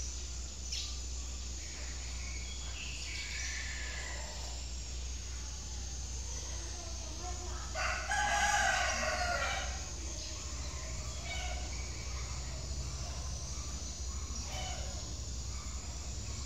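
A rooster crows once, about halfway through, a pitched call lasting about two seconds, over a steady low rumble.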